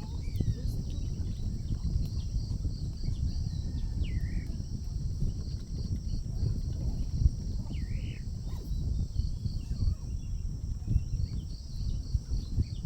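Outdoor morning ambience: a steady high insect drone with runs of quick chirps, and a few short bird calls about four and eight seconds in, over an uneven low rumble like wind on the microphone.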